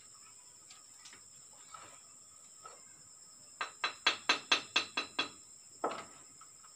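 Bricklayer's steel trowel tapping a brick down into its mortar bed: a quick run of about nine sharp clinks lasting just over a second, followed by one more knock. A steady high insect drone runs underneath.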